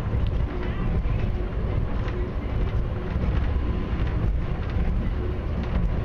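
Airport inter-terminal people-mover train heard from inside the car while running along its guideway: a steady low rumble with light rattles and ticks.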